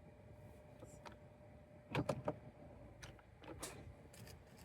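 Car's automatic gear selector shifted from park into reverse and back into park: a quick cluster of sharp clicks about two seconds in, then a few lighter clicks and a small thunk over the next two seconds as the lever returns to park.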